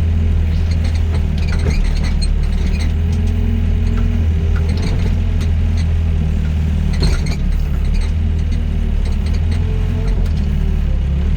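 Doosan DX55 mini excavator's diesel engine running with a steady low drone and a steady higher tone above it, with a few knocks from the machine, the loudest about seven seconds in.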